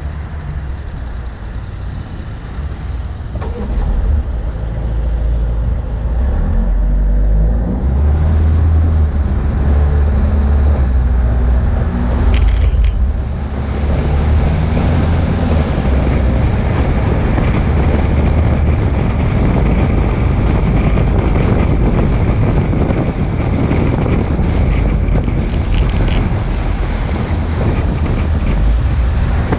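Loud, steady low rumble of a moving vehicle mixed with wind noise on the microphone, growing louder about four seconds in.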